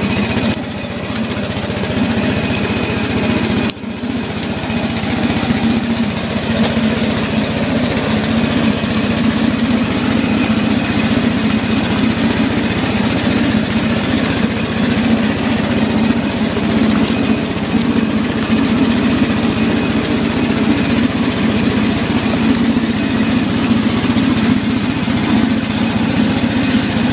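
A small engine running steadily and loudly throughout, with a brief dip about four seconds in.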